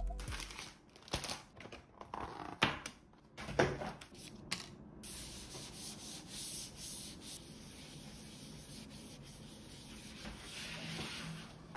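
A cloth wiping dust off the aluminium lid of a MacBook Air, a steady rubbing hiss that rises and falls with the strokes. In the first few seconds there are a few sharp clicks and taps.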